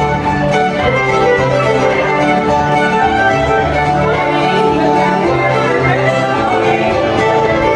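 Fiddle tune with guitar accompaniment, played continuously at a steady tempo.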